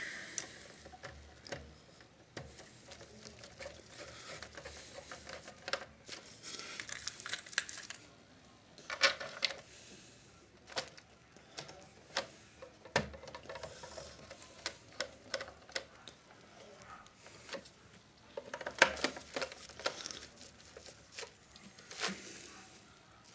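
Irregular small clicks, taps and scrapes of hands and a screwdriver working on the plastic case of a Philips D6350 cassette recorder during reassembly, with a few louder knocks scattered through.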